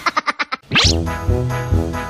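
Background music for an edited video: a quick run of short staccato notes, then a rising sweep just under a second in, followed by a bouncy tune over a steady bass beat.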